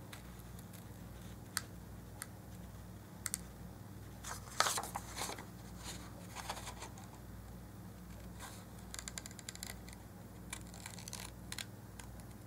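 Paper scissors snipping through printed card stock in short, irregular cuts, with a cluster of snips about four and a half seconds in and a run of quick small snips in the second half. A faint steady low hum runs underneath.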